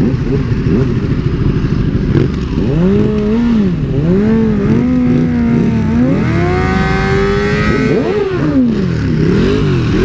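Motorcycle engine being revved hard: several quick blips of the throttle, each rising and falling in pitch, then a longer rev held high for a couple of seconds, then more blips, over a steady low rumble.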